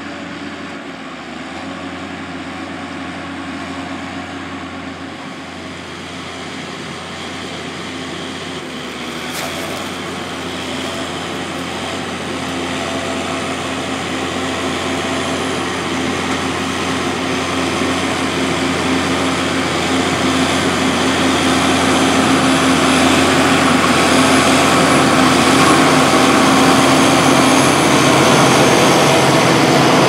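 John Deere 7530 Premium tractor's six-cylinder diesel engine running steadily under load while pulling a five-furrow plough through the soil, growing louder as the tractor comes closer.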